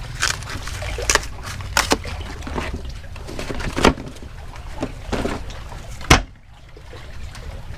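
Paper crackling and scattered knocks and clicks as a frozen block of chum is unwrapped from its paper box and handled. The loudest knock comes about six seconds in, as the block goes into a wire chum cage. A steady low rumble runs underneath.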